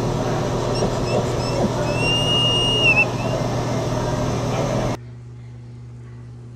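Auto repair shop background noise with a steady low hum, and a high squeal lasting about a second around two seconds in. About five seconds in it drops abruptly to a much quieter room with only a faint electrical hum.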